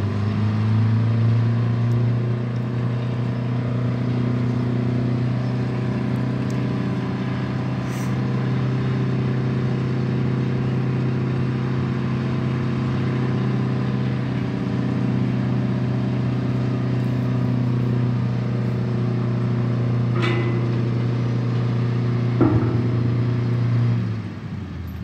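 An engine running steadily at one speed, a low even hum that drops away about a second before the end. Two faint knocks come near the end.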